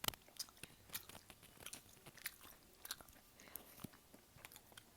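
Faint, scattered wet clicks and soft mouth noises of someone chewing food close to the microphone.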